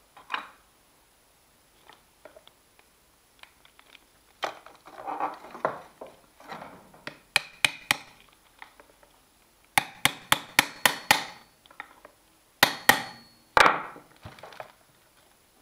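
Small hammer tapping a knurled pin into a KitchenAid stand mixer's gear housing until it sits flush, with no proper drift to hand. Sharp taps come in groups: three near the middle, a quick run of about seven a couple of seconds later, then two harder blows near the end, after some softer handling of the tools.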